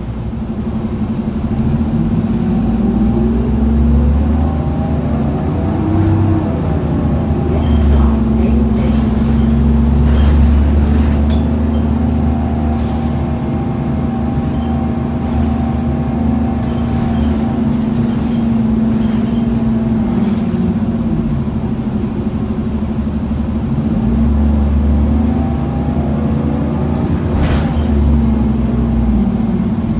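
Inside an Orion VII city bus under way: a steady diesel engine drone with road noise. The pitch rises and falls as the bus speeds up, near the start and again near the end, with occasional rattles.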